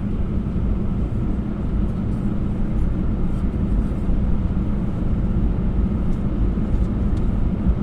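Steady low rumble inside the cabin of an Airbus A321 on the ground, its CFM56 engines and cabin air running with a constant hum.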